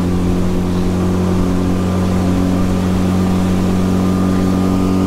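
Small outboard motor pushing a 13-foot skiff on plane, running at a steady speed. It makes one constant engine note over a steady hiss of wind and water.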